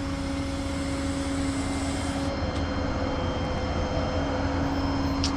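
Engine and road noise inside a moving tow truck's cab: a steady hum under a broad rushing noise that slowly grows louder, with a high hiss that cuts off about two seconds in.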